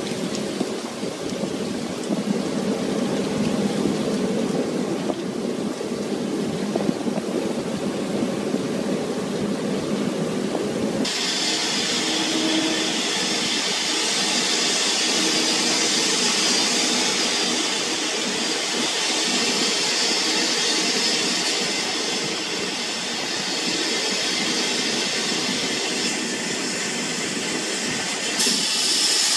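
Sea water rushing and splashing against a fishing net full of fish and the ship's side, over the steady hum of the vessel's machinery. About eleven seconds in it cuts to a louder hissing rush of water as the net is hoisted from the sea.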